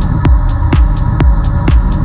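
Minimal techno track: a steady kick drum about twice a second with short high ticks between the beats, over a held synth tone.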